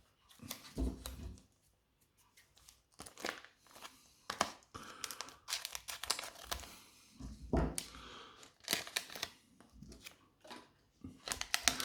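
A Pokémon card booster pack's foil wrapper being torn open and crinkled by hand, in short scattered rustles and crackles with brief pauses.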